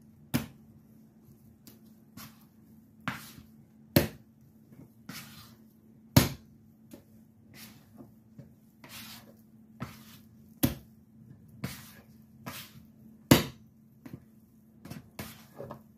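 Soft empanada dough being kneaded by hand on a wooden cutting board: irregular slaps and thuds as it is folded, lifted and brought down again, roughly one a second, a few of them much louder than the rest.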